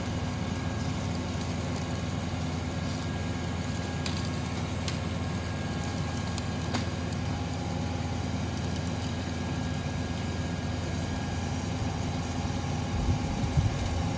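Kubota tractor's diesel engine running steadily at a constant speed, with a couple of sharp clicks partway through and a few louder low thumps near the end.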